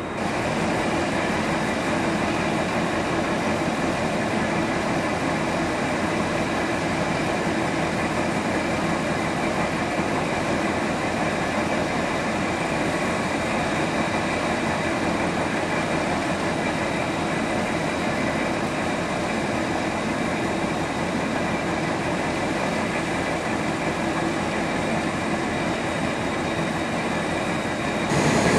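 VR Dr13 diesel locomotive idling with its twin engines running: a steady drone with a thin, constant high whine. It gets louder near the end.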